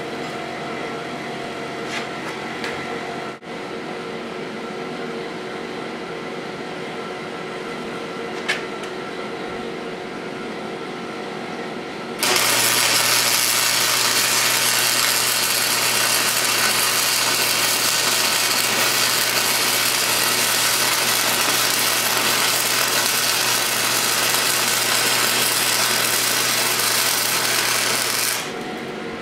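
Wire-feed welder arc on the steel reservoir end cap. A quieter steady hum with a couple of faint clicks, then about twelve seconds in the arc strikes: a loud, steady crackling hiss with a low buzz runs for about sixteen seconds and stops shortly before the end.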